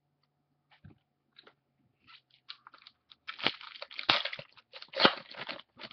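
Trading-card pack being opened and the cards handled: a run of crinkling wrapper and card clicks, sparse at first and busier from about three seconds in.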